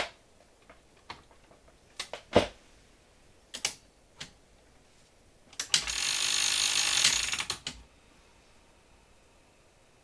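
Opened 1978 RCA VCT-200 VCR: a few sharp clicks from its mechanism, then about two seconds of its belt-driven transport, flywheel and gears running with a dense rattling whir before stopping abruptly. It is a test run to check whether the flywheel is mounted backwards.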